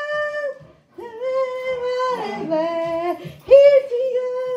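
A woman singing without accompaniment: long held notes that bend slightly in pitch, in three phrases split by short breaths.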